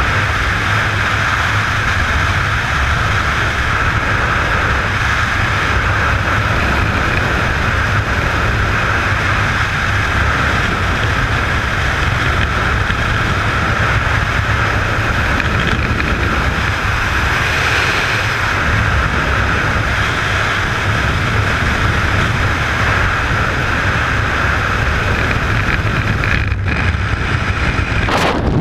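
Loud, steady rush of freefall wind buffeting the camera microphone during a tandem skydive. It cuts out abruptly near the end.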